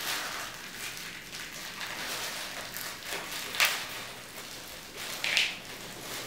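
Thin plastic sachet crinkling as roasted groundnuts are shaken out of it and patter into a plastic bowl of garri, with two sharper rustles, about three and a half and five seconds in.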